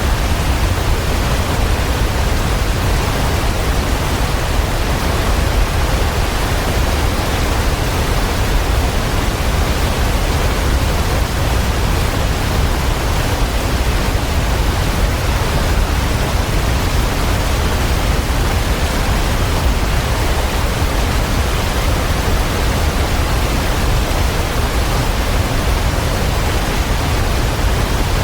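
Waterfall rushing: a steady, unbroken roar of falling water with a heavy low rumble underneath.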